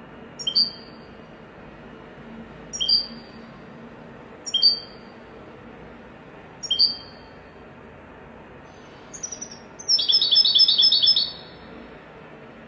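European goldfinch giving four short, separate high calls about two seconds apart, then a rapid trill of quickly repeated notes lasting about a second and a half near the end.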